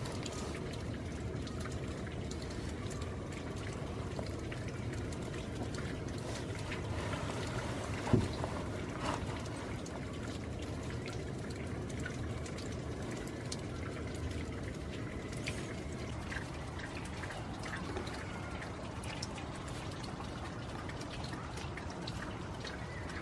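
Rainwater trickling and dripping steadily, with scattered small drip ticks and one sharp knock about eight seconds in.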